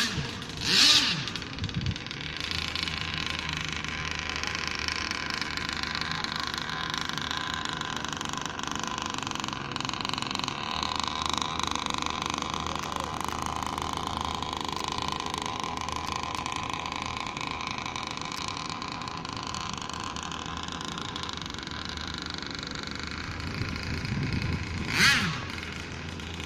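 Speedboat engine running steadily at speed, its pitch drifting slowly up and down, with two short loud bursts, one about a second in and one near the end.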